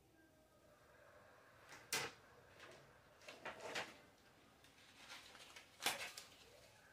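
Light handling noises: a few soft knocks and rustles close to the microphone, one about two seconds in, a short cluster around three and a half seconds, and another near six seconds.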